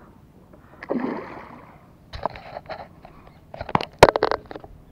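A hooked peacock bass splashing and thrashing at the surface beside the boat about a second in, followed by a series of sharp knocks and rattles, the loudest about four seconds in.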